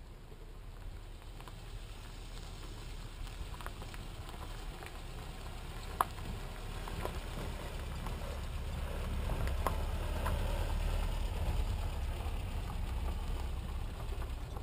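Small pickup truck driving along a dirt road, its engine and tyres growing louder as it approaches and passes, with a few sharp clicks along the way.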